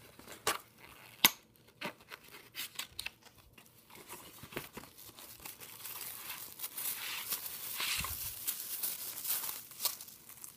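Packaging unwrapped by hand: scattered taps and rustles at first, then denser crinkling of plastic wrap in the second half.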